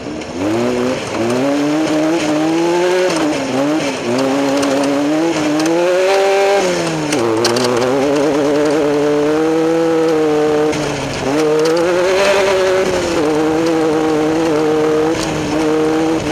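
Off-road race vehicle's engine running hard, its pitch climbing and falling with the revs, with sudden drops about four and seven seconds in and a brief dip near the end.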